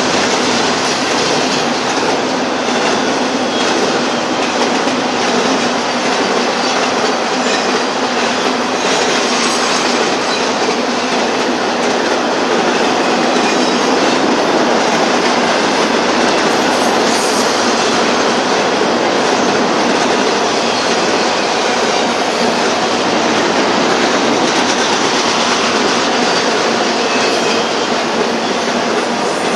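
BNSF intermodal freight train's double-stack container cars and trailer flatcars rolling past steadily, a constant loud rush of steel wheels running on the rails.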